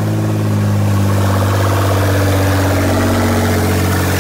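Nissan GT-R's twin-turbo V6 running at a steady idle on its first start after the rebuild. No downpipes are fitted, so the exhaust comes straight off the turbos, loud and unmuffled.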